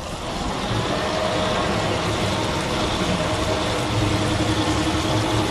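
Twin Honda BF225 four-stroke outboard engines running in reverse gear: a steady drone with a steady whine that comes in about a second in.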